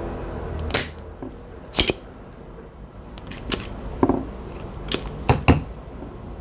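Irregular sharp clicks and light taps from handling a computer mouse's small micro switches and plastic parts during repair. There are about seven of them, with a close pair near the end and a duller knock around the middle.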